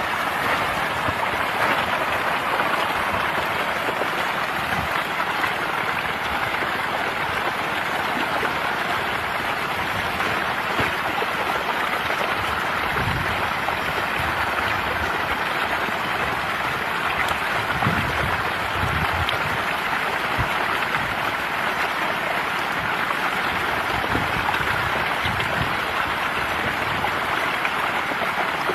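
Continuous splashing and churning of water from a dense mass of catfish thrashing at the surface as they feed, with a few brief low thuds along the way.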